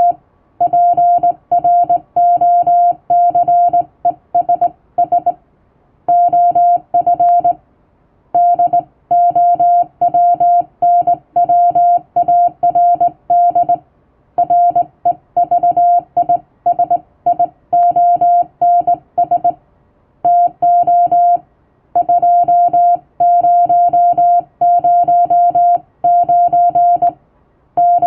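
Morse code sent by hand on a straight key, heard as the CW tone: one steady beep keyed on and off in dots and dashes, with a short pause between groups every few seconds.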